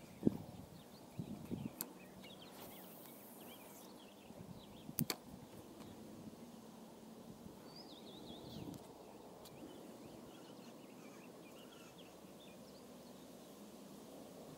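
Spinning rod and reel being handled while casting and retrieving a lure: a few sharp clicks and knocks, the loudest near the start and another about five seconds in, over quiet outdoor ambience with faint bird chirps.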